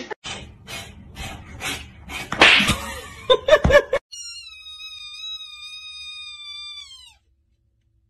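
A jumble of knocks and rustling, then a newborn kitten's cry: one long, high mew held steady for about three seconds that drops in pitch as it ends.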